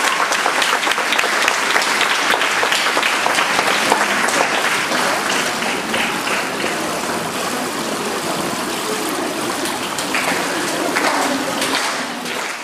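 Audience applauding, a dense crackle of clapping that eases slowly and then fades out near the end.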